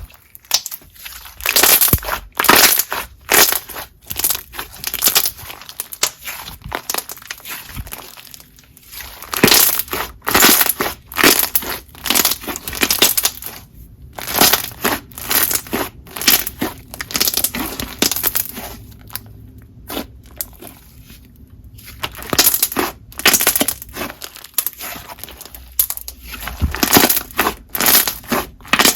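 Hands squishing and pressing a coated jelly slime: dense, irregular sticky crackles and pops, coming in clusters with short lulls.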